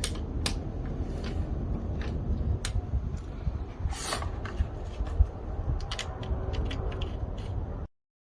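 Scattered light clicks and knocks of hands handling parts or tools, over a steady low rumble, with one sharper knock about five seconds in; the sound cuts off suddenly near the end.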